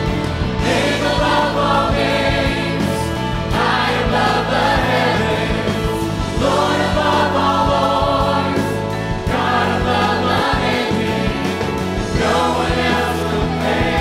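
Large mixed choir singing a Christian song with a live band backing. Sung phrases come in about every three seconds over a steady instrumental bed.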